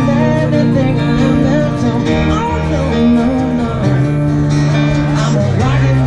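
Live music: a man singing over a strummed acoustic guitar, with keyboard and a steady bass underneath.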